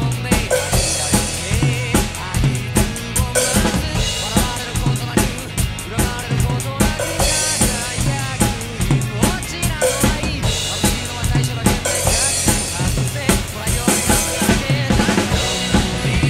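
Pearl rock drum kit played in a driving beat, bass drum and snare hit in a steady rhythm under the hi-hat, with cymbal crashes every few seconds. A recorded band with singing plays along underneath.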